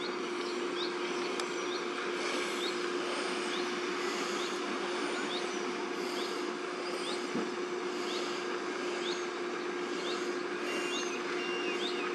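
Fire engine running steadily with a constant hum over a wash of noise. A vehicle's reversing beeper starts near the end, beeping on and off.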